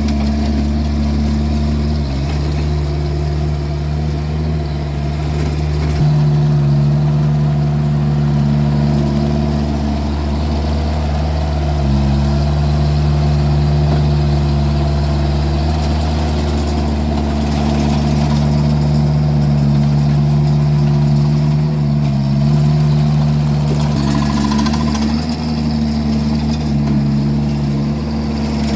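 Vermeer mini skid steer's engine running steadily under load while the machine scrapes snow with its tilted bucket, the engine note dipping and picking up slightly every few seconds.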